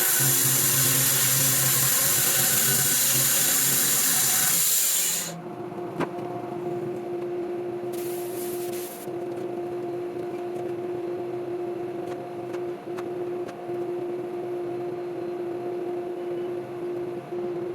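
Sawmill cutting through a white oak log for about five seconds, then running without cutting as a steady hum, with a few clicks and a brief hiss in between. The cutting noise starts again right at the end.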